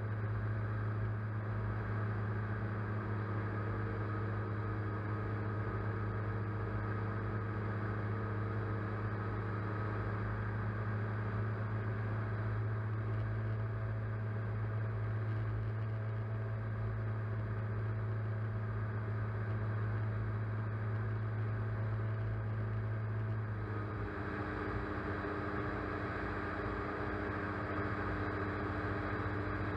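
Electric motors and propellers of a camera drone humming steadily, heard close up from the aircraft's own camera. The tone shifts slightly about three-quarters of the way through.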